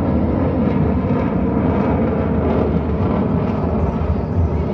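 Jet engines of U.S. Navy Blue Angels F/A-18 Super Hornets in flight, a loud, steady rushing noise that neither rises nor falls.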